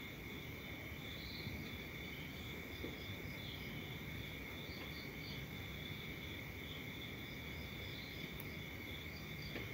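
Faint crickets trilling steadily, with scattered short chirps over a low hiss. The DRM radio's own audio is muted: the receiver has lost the weak shortwave signal and is re-tuning.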